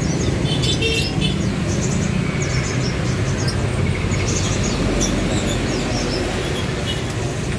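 Many caged small songbirds chirping and twittering in short, high, overlapping calls, over a steady low rumble.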